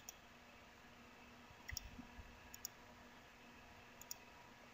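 A few faint computer mouse clicks, spaced roughly a second apart, over near-silent room tone.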